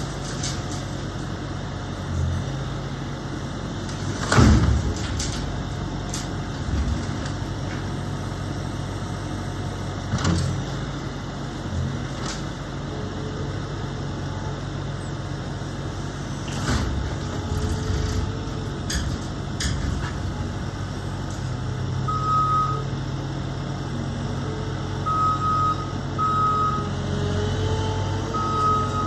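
Heavy diesel machinery running at a steady hum, with loud knocks and clatter from demolition work; the strongest knock comes about four seconds in. In the last several seconds a reversing alarm beeps repeatedly.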